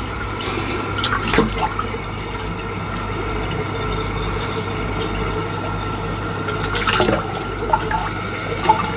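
Water tap running steadily into a sink, with brief louder splashes about a second in and again around seven seconds.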